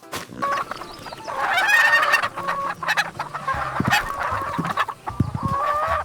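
Chickens clucking, a dense run of overlapping calls starting about a second in, with a few short knocks among them.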